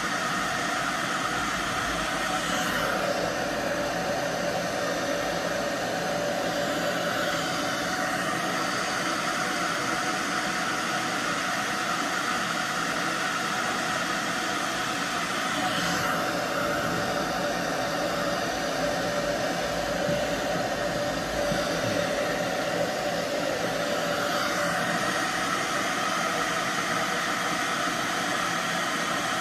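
Handheld hair dryer running steadily, blowing through long hair. Its sound shifts slightly every few seconds as the dryer is moved.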